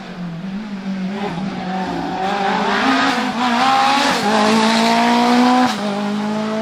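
Lancia Delta S4 Group B rally car accelerating hard past on tarmac, its engine note climbing in pitch, with gear changes about four and five and a half seconds in. It is loudest just before the second shift.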